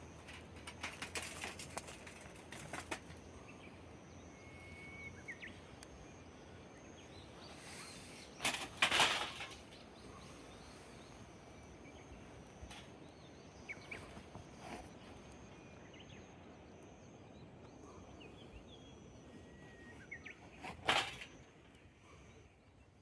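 Campfire crackling, with scattered sharp pops and two louder rustling bursts of about a second, one about nine seconds in and one near the end. Faint short high chirps come now and then.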